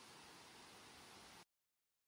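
Faint, steady hiss that cuts off abruptly to dead silence about a second and a half in.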